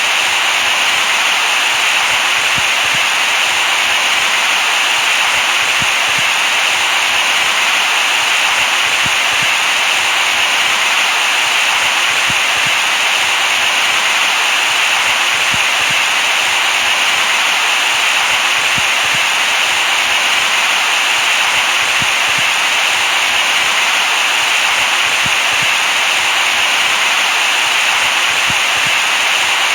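Steady, loud artificial hiss, with most of its energy in the upper mids: white noise for soothing a baby to sleep.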